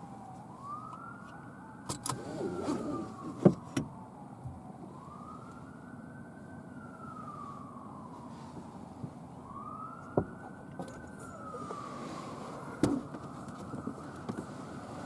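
Ambulance siren wailing, its pitch sliding slowly up and down about every four seconds. Several sharp knocks come over it, and the loudest is about three and a half seconds in.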